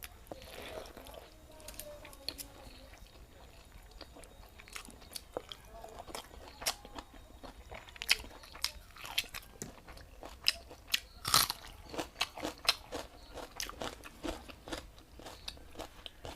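Close-miked eating of watered rice with raw onion: crisp crunching bites and chewing. The crunches come thickest and loudest from about eight seconds in.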